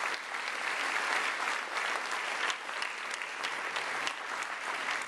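Audience applauding: many hands clapping at a steady level, a continuous patter of claps.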